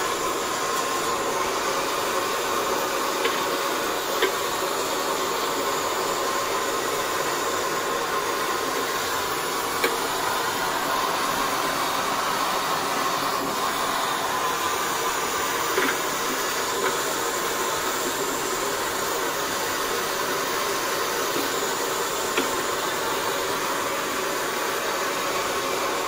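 Steady, even rushing noise, like a fan or blower running, with a few light clicks several seconds apart as lead-acid battery plates and separators are handled and stacked.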